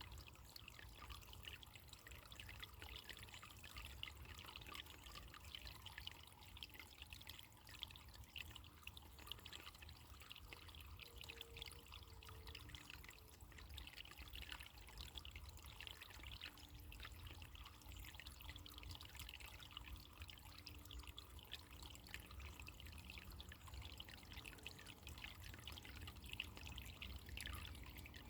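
Faint, steady trickling of running water, with many small splashes and drips.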